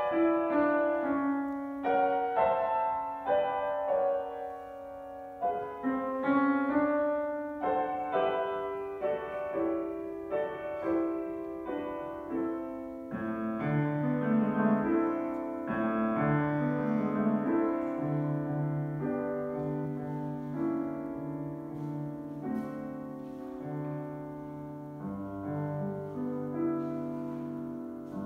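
Grand piano played solo in a classical piece: a melody over changing chords. About halfway in it turns slower, with held low bass notes, and it grows gradually softer toward the end.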